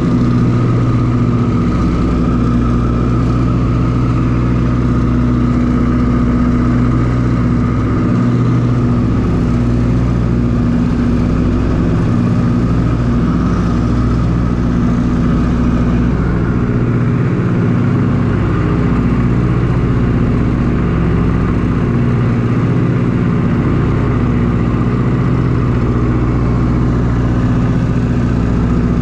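Ford Tri-Motor's radial piston engines and propellers running steadily in cruising flight, heard from inside the cabin as a loud, even drone.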